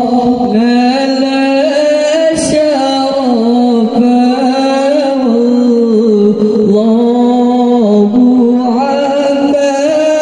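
A boy's voice singing an Islamic gojol into a microphone. He holds long, drawn-out notes with ornamented turns between them, and no instruments are heard. A brief knock comes about two and a half seconds in.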